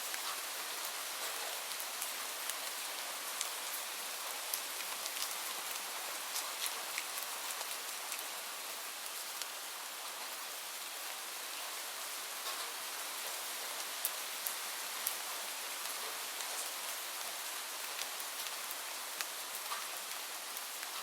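Light rain falling steadily: an even hiss with scattered individual drops ticking on a surface.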